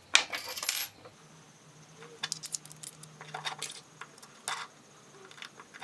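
Metal quick change tool holders being handled: a short scrape just after the start, then scattered light metallic clinks and taps.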